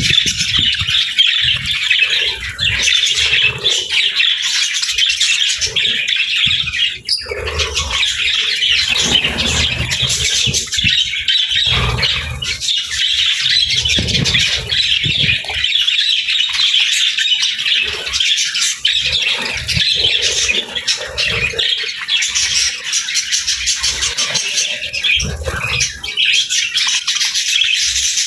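A flock of budgerigars chattering and chirping continuously: many overlapping short calls and squawks with no pause.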